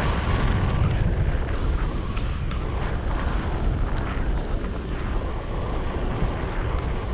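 Wind buffeting the microphone: a loud, steady low rush of noise that rises sharply at the start and holds.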